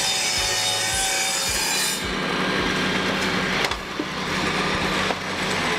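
Shopsmith Mark V table saw running with its blade cutting through a wooden board. There is a steady motor and blade whine, and the sound changes about two seconds in.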